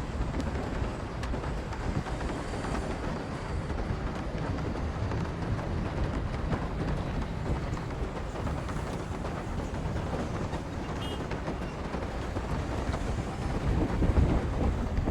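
A Tata Nexon driving in heavy rain, heard from its windscreen dashcam: rain falling on the car and tyres on a wet road over a steady low road rumble. It gets louder near the end.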